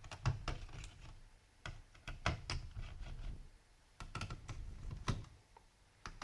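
Small screwdriver loosening the screws of a laptop's cooling system: clicks and light scraping of the bit in the screw heads, in three short spells with brief pauses between.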